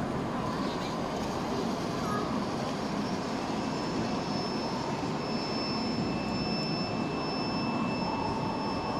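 A 5-inch gauge model diesel shunter running slowly along a raised track, amid the steady murmur of a crowded hall. From about three seconds in, a steady high whine sounds.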